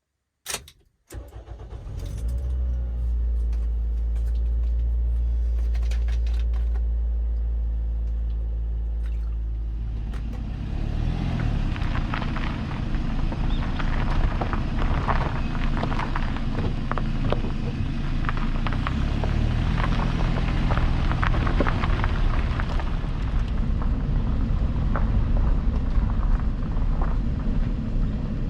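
Toyota Porte's engine starting after a couple of clicks, then running with a steady hum. About ten seconds in the sound turns rougher and noisier, with many small clicks, as the car moves off.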